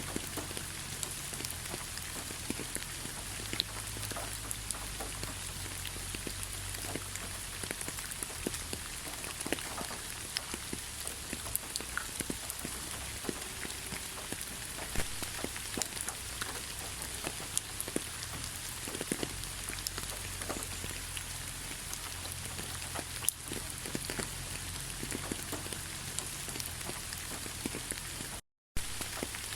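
Steady rain falling, an even hiss dotted with many sharp individual drop ticks over a low rumble. Near the end it cuts out completely for a fraction of a second, then resumes.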